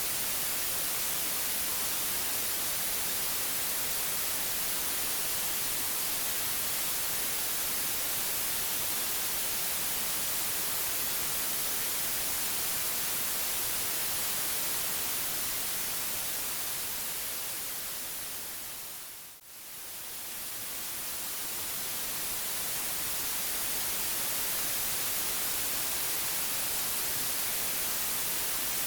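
Steady white noise, an even hiss across the whole range. About two-thirds of the way through it fades down to a brief dip and swells back up, as if the track loops.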